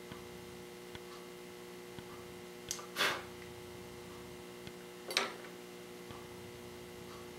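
Two short rushing noises about two seconds apart from hands working on a small slot-car chassis. Under them run a steady hum and a faint tick about once a second.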